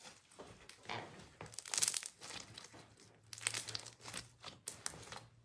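Homemade slime squeezed and kneaded in the fingers right at the microphone, giving irregular crackles and pops as air trapped in it bursts.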